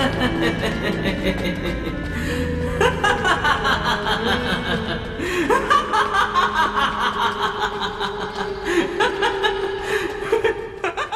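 Long, drawn-out laughter with a fast, even ha-ha-ha rhythm, over dramatic background music.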